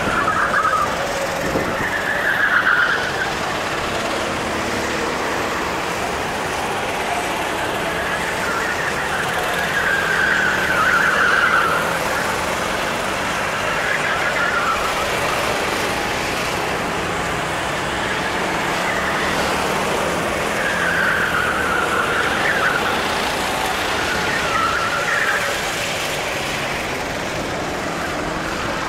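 Sodi RT8 rental karts lapping the circuit, their small engines revving up and down as they pass through the corners, over a steady drone of other karts around the track. The rising and falling engine whines come over and over, several of them close together.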